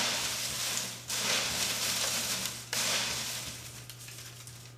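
A hand stirring through a box full of shredded paper slips: a crackling paper rustle in three long sweeps, the last one fading away.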